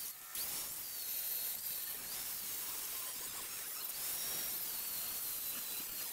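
Angle grinder cutting square steel tubing: a high whine over the hiss of the cut. The whine sags in pitch while the disc bites and climbs when it spins free, about four seconds in.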